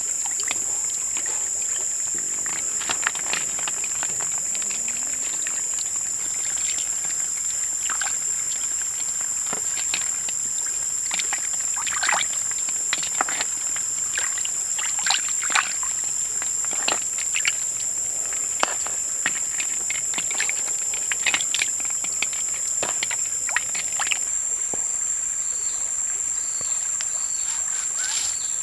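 Freshwater snails being washed by hand in a bowl of water: irregular splashes and sloshing over a steady high-pitched insect drone.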